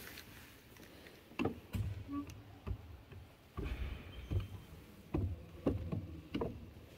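Wooden gearing of a hand-cranked wooden model of a Leonardo da Vinci machine (a staved lantern gear and a toothed wooden wheel) clacking as the crank is turned: about eight uneven wooden knocks over several seconds.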